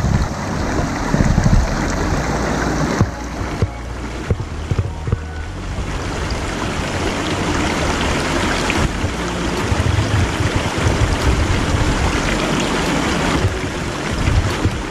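River water running over rocks: a steady, even rushing.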